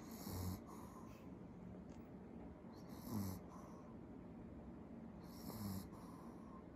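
Pomeranian dog snoring in its sleep: three short snores about two and a half seconds apart, each a low rumble with an airy hiss.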